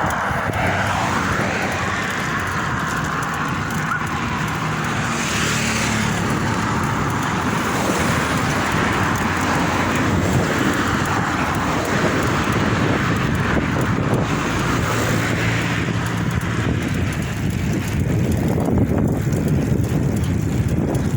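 Steady road noise from passing motor vehicles mixed with strong wind on the microphone, recorded while cycling into a headwind.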